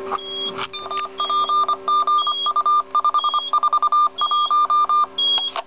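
Morse-code CW identification (CWID) from a WaveWare SPS-5 v9S POCSAG paging transmitter, heard through a monitoring receiver: a single tone keyed in dots and dashes, starting about a second in and lasting about four seconds. A short high beep repeats about once a second over a steady low hum.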